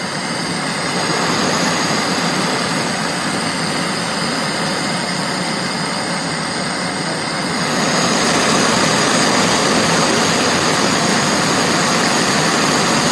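Gas welding torch flame burning with a steady, loud rushing noise that grows louder about eight seconds in.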